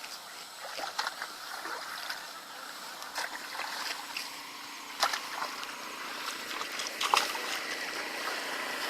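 Water splashing and trickling, with four short sharp clicks about two seconds apart.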